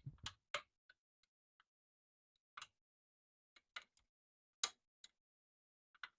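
Scattered sharp clicks and light taps, about ten at irregular intervals, from a hand tool being worked on a fastener of the e-bike.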